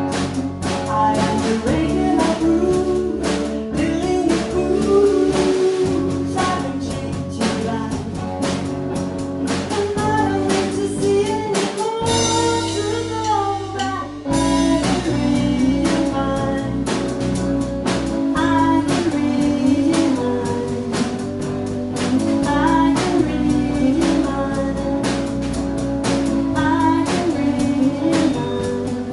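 A band playing a song: a singing voice over guitar and drum kit. The bass and drums drop out for about two seconds near the middle, then come back in.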